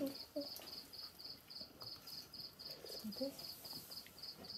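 Insect chirping in a steady, even rhythm: short high chirps at about three to four a second.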